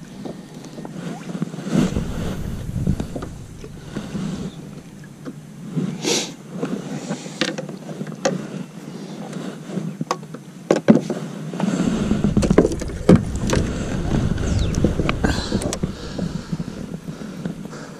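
Wind buffeting the microphone and small waves slapping against a kayak hull, with gusts of low rumble and scattered sharp clicks and knocks.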